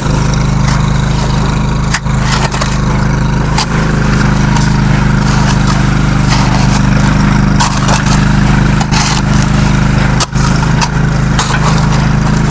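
Homemade concrete mixer running: a steady low motor hum with gritty scraping and scattered knocks from the mix tumbling in the drum.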